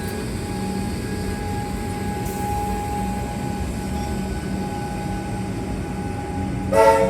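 Electric suburban train running with a steady hum and rumble. A short, loud horn blast sounds near the end.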